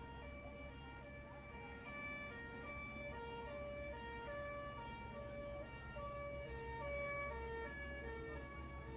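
Airport fire truck's two-tone siren, alternating between two pitches about twice a second, over a low engine rumble as the truck speeds along.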